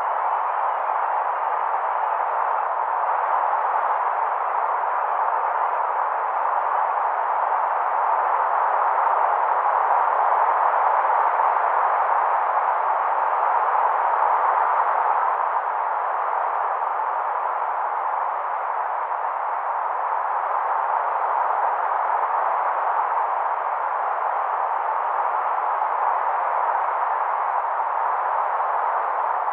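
A steady, even hiss of noise with no tone or rhythm.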